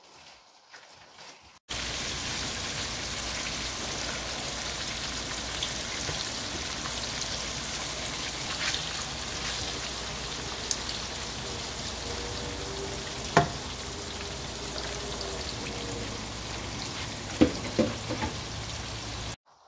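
Flour-dusted tilapia pieces sizzling as they fry in oil in a stainless pan, a steady sizzle that starts abruptly about two seconds in and cuts off just before the end. A slotted spatula taps against the pan a few times in the second half.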